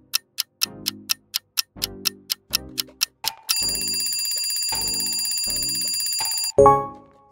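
Countdown timer sound effect over a looping music beat. A clock ticks about four times a second, then a bell rings steadily for about three seconds as the answer time runs out, ending on a short loud hit near the end.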